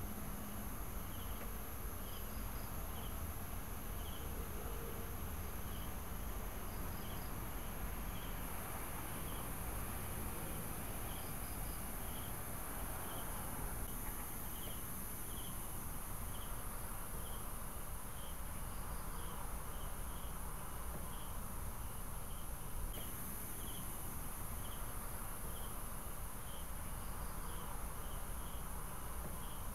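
Night insects, crickets, chirping: short chirps repeating about twice a second over a steady high-pitched insect drone.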